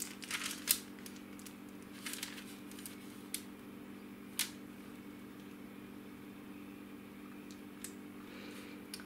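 Faint handling noises as choux dough is piped from a pastry bag onto a parchment-lined baking tray: a few light clicks and rustles of the parchment paper, scattered through, over a steady low hum.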